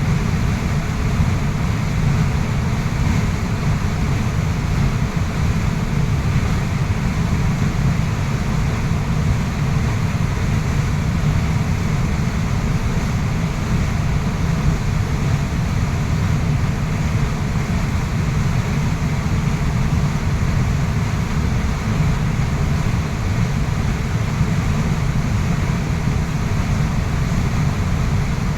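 Waterfall water rushing steadily: a constant, unbroken noise, heaviest in the deep low end.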